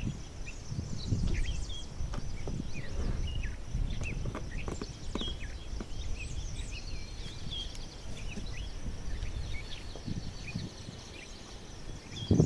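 Small birds chirping, many short calls all through, over low knocks and rustling from objects being handled on a wooden deck.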